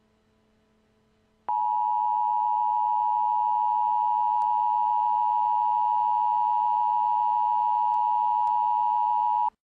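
Emergency Alert System attention tone: a loud, steady electronic tone that starts abruptly about a second and a half in, holds at one pitch for about eight seconds and cuts off sharply. It signals that an emergency alert message follows.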